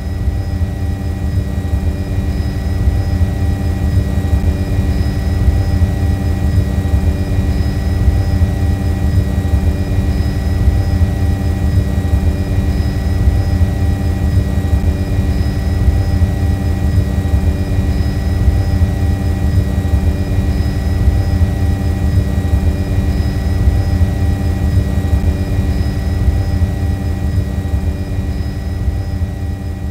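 Multirotor drone's motors and propellers running steadily: a constant whine of several fixed pitches over a low rumble.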